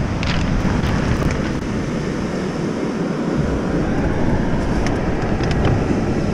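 Steady wind noise rumbling on the microphone, with a few faint short clicks.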